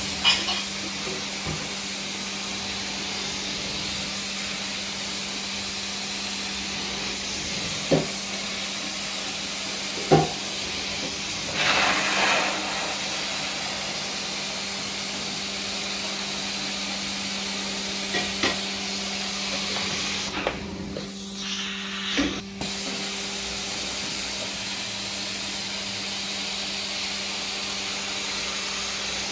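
Carpet-cleaning extraction wand sucking water and air through its head as it is worked across the carpet, a steady hiss over the constant hum of the extractor's vacuum motor. A few short knocks come in the first third, and about two-thirds through the hiss briefly drops out.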